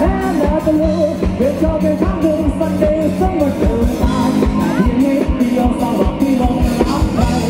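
Live rock band playing: a singer over electric guitar and drums, with a steady drum beat.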